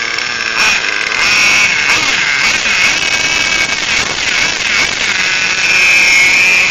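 Small glow-plug (nitro) engine of a radio-controlled truck running at high revs: a high-pitched, wavering engine whine that grows a little louder near the end. The truck is being driven in reverse, with little traction going backwards.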